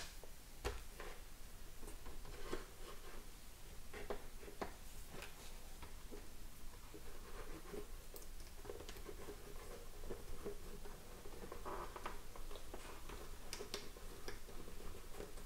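Scattered light clicks and scratches of an Allen key turning the clamp screw of a Sena 30K helmet clamp mount, with hands handling the mount against the helmet shell.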